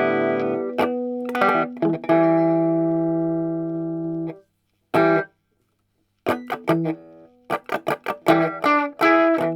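Electric guitar played through a Bugera V5 tube combo amp in its 1-watt mode. A few strummed chords, one left to ring and fade until it is cut off about four seconds in, then a single short stab. After about a second of silence comes a quick run of choppy, rhythmic chords.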